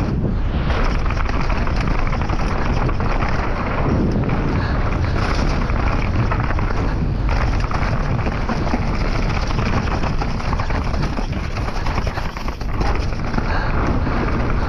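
Mountain bike running chainless down a rough downhill trail: wind rushing over the microphone with the steady rattle and knocking of the bike and tyres over dirt and rocks.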